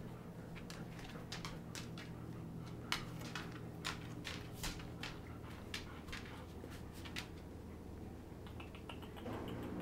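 Faint, irregular light clicks and scratches of golden retriever puppies' claws and paws on the whelping box floor as they crawl about, over a steady low hum.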